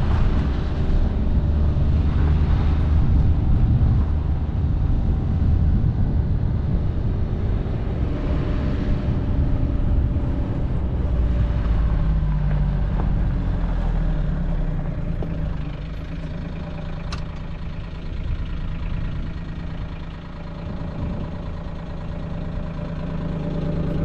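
Vehicle driving slowly over a dirt lot: a steady engine hum with a low rumble from the ride, easing off somewhat about two-thirds of the way through, and one short click near the end.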